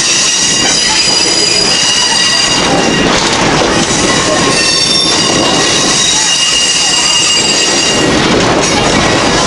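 Steel train wheels squealing against the rails, several high steady pitches coming and going over the rolling rumble of an open-air railroad car on old jointed track.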